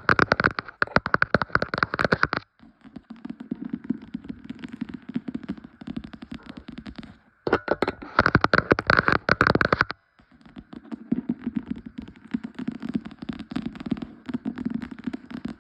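Book tapped and scratched for ASMR: two loud stretches of rapid, dense tapping, at the start and again about halfway through. Between and after them come quieter stretches of continuous scratching.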